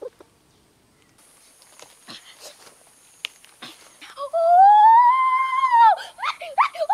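A high, drawn-out whine that rises and then falls over nearly two seconds, followed by a few short whimpering calls, with soft rustling before it.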